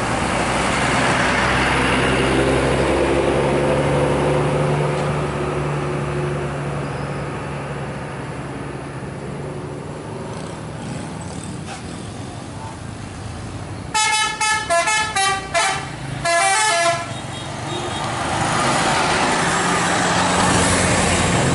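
Tour bus diesel engine running as the bus approaches, its pitch rising over the first few seconds. About two-thirds of the way in, a telolet musical horn plays a quick run of different notes for about three seconds. Then the engine grows loud as the bus passes close.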